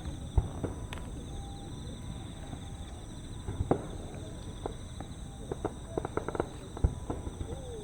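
Distant fireworks across a lake: a deep boom about half a second in and another near the end, with a run of crackling pops in the second half.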